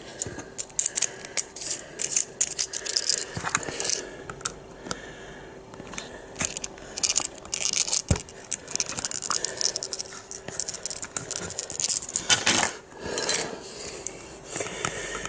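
Sharp screwdriver point scraping and twisting into a plastic case to bore a hole: a run of quick scratchy clicks and scrapes, with louder bursts about three seconds in and near the end. A faint steady hum sits underneath.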